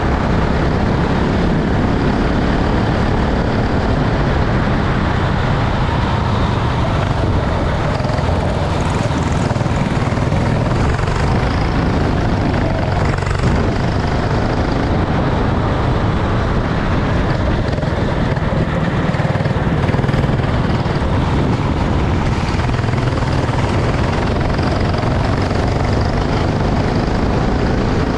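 Racing kart engine running steadily, a continuous buzzing drone under a dense wash of noise.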